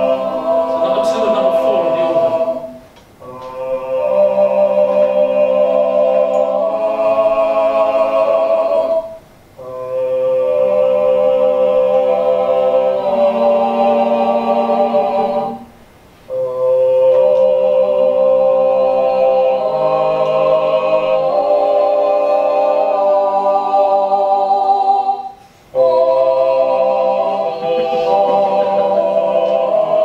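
A four-part vocalese piece: two human singers with two parts on a vocal tract organ, whose 3D-printed vocal tracts are voiced by an electronic larynx and played from a keyboard. They sing long held chords in phrases, with brief breaks between them.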